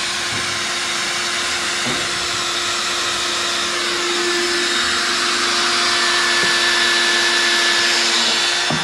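Cordless drill running steadily under load as it bores a hole through the inflatable boat's transom for the wheel mount. It stops abruptly at the end, once the bit is through.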